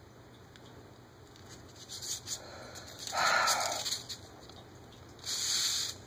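Handling noise: a few light taps, then two bursts of a paper sheet rustling and sliding, the second near the end, as the bearded dragon is set down on the dose-chart sheet and the sheet is moved.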